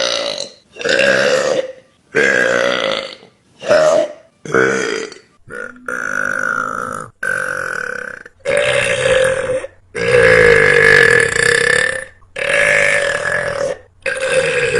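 Girls burping: a run of about eleven loud burps, one after another, each roughly a second long with short gaps between them.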